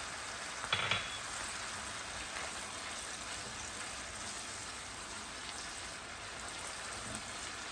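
Mushroom sauce sizzling and bubbling steadily in a frying pan over high heat, with one brief knock about a second in.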